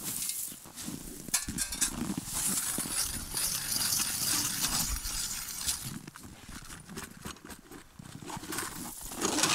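Hand ice augers cutting through ice: a crunching, scraping grind of the blades chewing into the ice, fainter for a few seconds near the end before picking up again.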